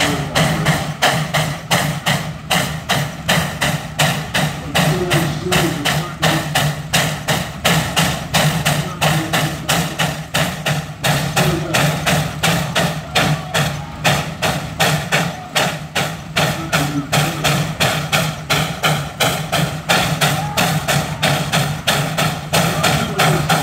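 McLaren steam roller's exhaust chuffing in a fast, even beat as it works under heavy load pulling a weight-transfer sled, over a steady low engine hum.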